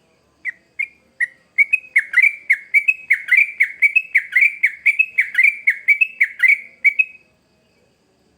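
Sooty-headed bulbul singing a rapid, loud run of short downslurred notes: a few spaced notes at first, then about four notes a second for five seconds before it stops abruptly.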